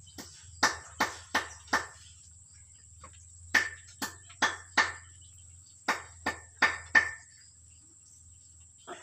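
Runs of sharp clicks, three groups of four at about three a second, then two more near the end, over a steady high-pitched whine.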